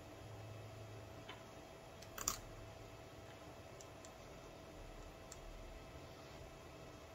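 A few small clicks of wire leads and connectors being handled at the terminals of lithium iron phosphate battery cells, the sharpest a little over two seconds in, over a faint steady hum.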